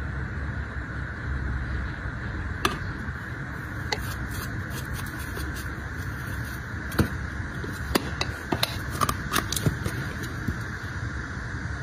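Scattered light clicks and taps of clear acrylic press-on nail boxes being handled, with a quick run of clicks about two-thirds of the way through as a lid is worked open, over a steady background hiss.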